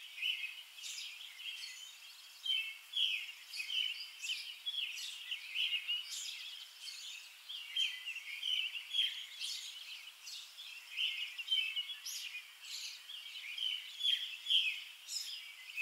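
Small birds chirping and twittering: a steady run of short, high-pitched chirps, several a second.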